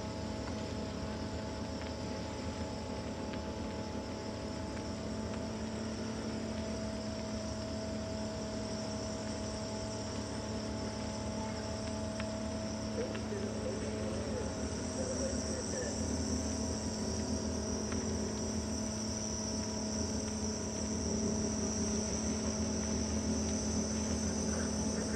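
Steady chirring of insects in the riverside vegetation, over a low steady engine hum.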